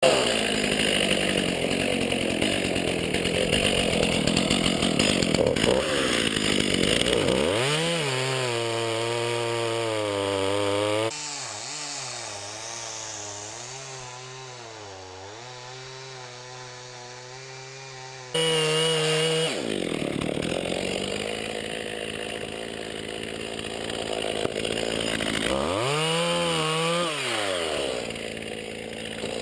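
Jonsered 2045 two-stroke chainsaw cutting into dead wood at full throttle. The engine pitch drops as it comes off the cut, and the saw runs more slowly and quietly for several seconds. It then goes back into the cut, easing off and revving up again briefly near the end.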